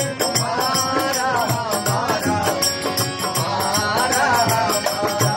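Live bhajan singing with harmonium accompaniment and a dholak drum keeping a steady beat.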